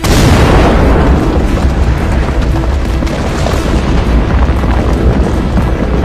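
Explosive volcanic eruption: a deep boom that starts suddenly, then a continuous low rumble of the blast, with music over it.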